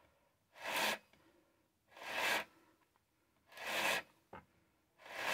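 New Stihl MS 661 C-M chainsaw being worked by hand: four short strokes about a second and a half apart, each swelling and then stopping sharply.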